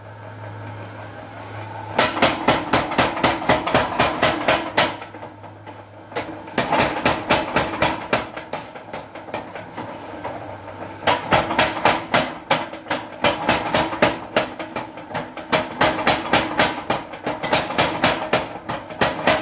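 A 25 kg power hammer: its motor hums alone for about two seconds, then the ram strikes in fast, even blows, about four to five a second. The blows ease off and hit more lightly for a few seconds midway, then come back hard.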